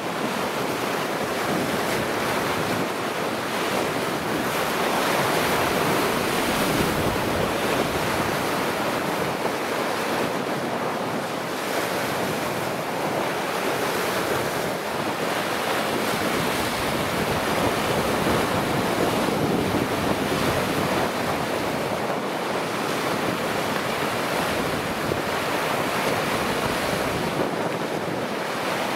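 Steady rushing of sea waves mixed with wind buffeting the microphone, a loud even noise that swells and eases slowly.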